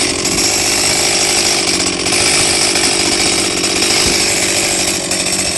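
Chainsaw running steadily, its engine note holding level.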